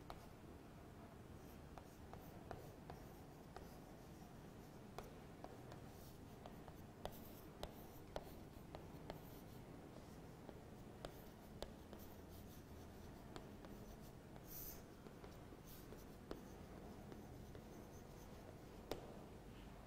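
Chalk writing on a chalkboard: faint scratching strokes with many sharp taps as the chalk touches down for each letter and line.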